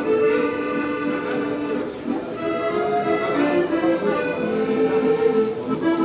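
Piano accordion played live: a melody of long held notes over sustained chords.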